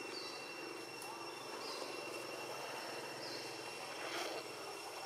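Outdoor ambience: a steady low hum under two steady high whines, with a short rising chirp repeating about every one and a half seconds.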